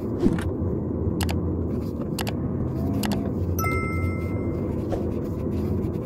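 Steady low rumble of a car's engine and tyres heard from inside the cabin, with a few light clicks or rattles and a short faint tone a little past the middle.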